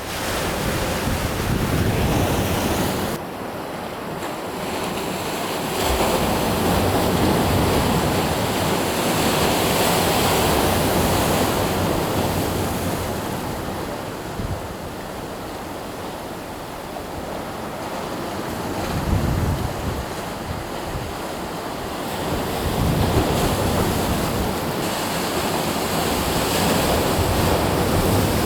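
Sea waves breaking and washing on the shore, swelling and ebbing every several seconds, with wind buffeting the microphone in gusts.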